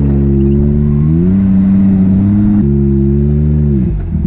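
Can-Am Maverick X3 Turbo side-by-side's turbocharged three-cylinder engine running hard at high, fairly steady revs. The pitch climbs about a second in, the sound jumps abruptly a little past halfway, and the revs drop off near the end.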